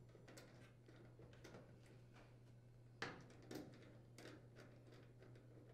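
Near silence with a few faint clicks and scrapes of a screwdriver tightening the dryer's terminal block screws; the loudest comes about three seconds in.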